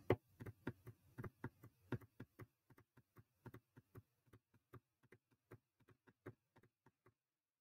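Faint, irregular taps on a computer keyboard, a few a second, stopping about seven seconds in.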